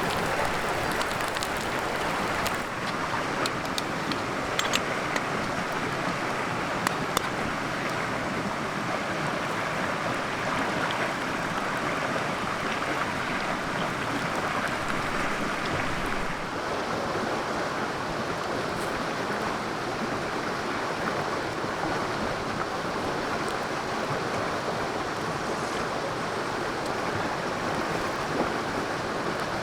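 A river flowing: a steady rushing of water, with a few sharp clicks in the first several seconds.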